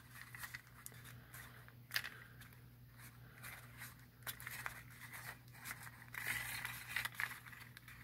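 Faint rustling and crinkling of an accordion-folded paper strip being handled and pressed together, with scattered light clicks, over a low steady hum.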